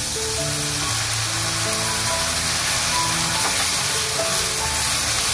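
Background music of held, stepping notes over the steady sizzle of shredded carrot and shiitake mushrooms stir-frying in a wok.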